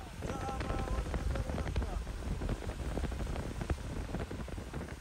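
Car driving on a snowy, slushy road, heard from inside the cabin: a steady low road rumble with frequent small clicks and crackles, and a brief voice-like sound right at the start.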